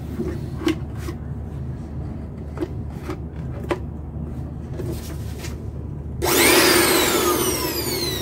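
Light clicks and rubbing of gloved hands on the plastic body of a Makita UB1102 electric blower, then about six seconds in the blower comes on with a sudden loud rush of air and a motor whine that falls steadily in pitch.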